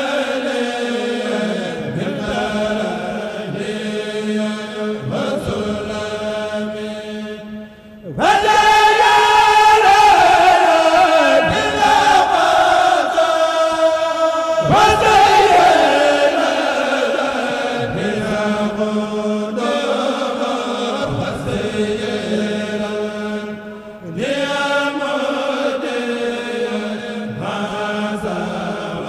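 Male choir chanting a Mouride qasida a cappella. About eight seconds in the singing swells louder and higher, with long phrases gliding downward, then falls back to the quieter chant about twenty-four seconds in.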